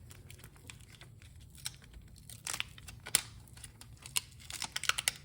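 Small scattered clicks and crinkling of hands working a tire plug kit, handling the tools and a sticky rubber plug strip; the sounds come in irregular clusters, busiest in the middle and near the end.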